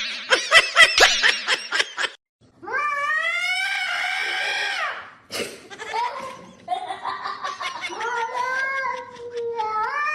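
A domestic cat yowling in two long, drawn-out calls: the first rises then falls in pitch, the second wavers up and down for several seconds. They follow a quick run of short, loud pulses in the first two seconds.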